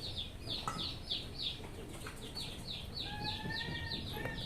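Faint, regular high chirping from a bird, short downward-sliding chirps about three a second, with a brief steady whistle-like tone about three seconds in. No rooster crow is heard.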